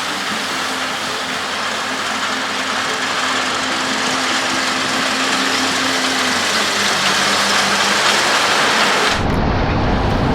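Case IH AF10 combine harvester running while harvesting wheat: a steady machine noise with a faint hum under it. About nine seconds in, the sound changes abruptly to a deeper, heavier machine sound with less hiss.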